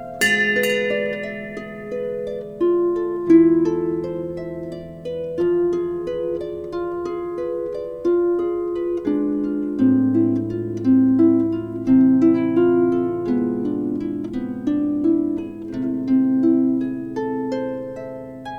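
Instrumental harp music: a flowing line of plucked harp notes, each ringing and dying away, over held low notes.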